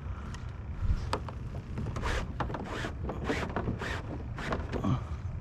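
Wind rumbling on the microphone, with a string of short scrapes and clicks from about a second in to near the end.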